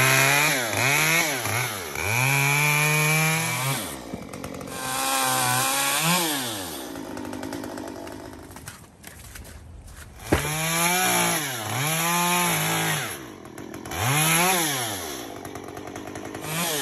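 Small Stihl two-stroke top-handle chainsaw cutting up fallen, snow-covered branches, revving up and dropping back again and again. It settles to a lower idle for a few seconds in the middle before revving hard again.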